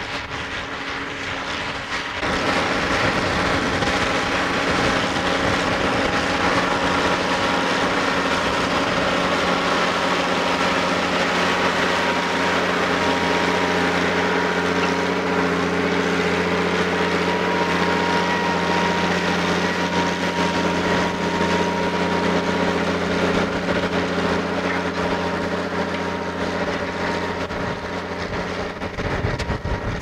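Massey Ferguson 1200 articulated tractor's six-cylinder diesel engine running steadily under load as it pulls a chisel plough. It grows louder about two seconds in.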